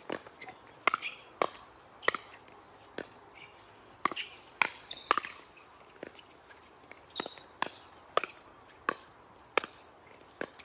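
Pickleball paddles striking a plastic pickleball in a long rally at the net, giving short sharp pops about one to two a second at uneven spacing.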